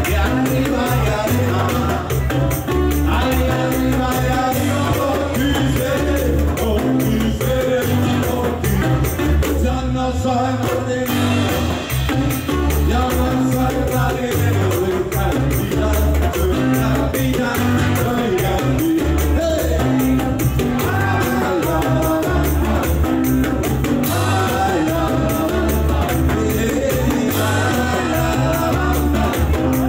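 Live Latin music: a man singing over acoustic guitar, electric bass and hand percussion, with a steady beat.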